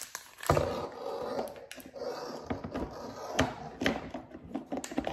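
Black plastic electric kettle being handled, with irregular plastic knocks and clicks as it is lifted and moved about.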